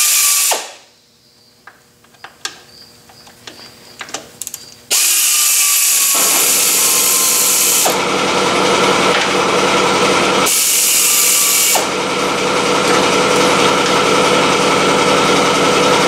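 Cordless drill-driver with an Allen bit backing bolts out of a lathe's lead screw bearing bracket. It runs in short spells: at the very start, from about five to eight seconds, and again for about a second past ten seconds. From about six seconds a loud, steady machine noise has come on and runs under it.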